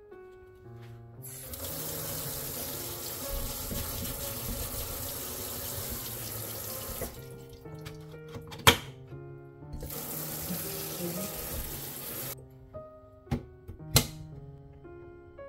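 Kitchen tap running into a stainless steel sink in two spells while a mandoline slicer is rinsed, with two sharp knocks from the slicer being handled, the second near the end. Light background music plays throughout.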